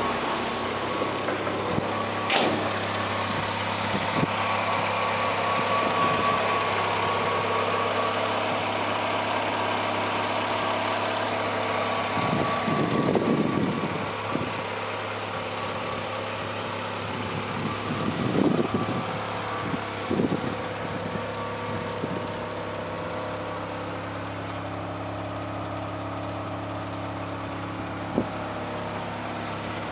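Citroën HY van's engine idling steadily. A sharp click comes about two seconds in, and a few brief rustling bursts sit on top of the idle later on.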